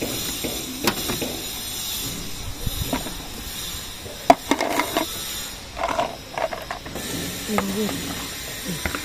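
Plastic push-pin trim clips being prised out of a car's front bumper cover with a flat screwdriver: scattered clicks and short scrapes of metal on plastic, with one sharp click about four seconds in.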